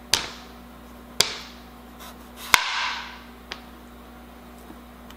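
Chef's knife slicing through zucchini and striking a plastic cutting board: three sharp knocks in the first three seconds, the third the loudest with a short swish after it, then a faint tap.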